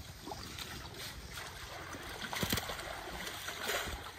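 Shallow pond water sloshing and splashing as men wade and handle a seine net full of weeds, with a louder splash about two and a half seconds in and another near the end.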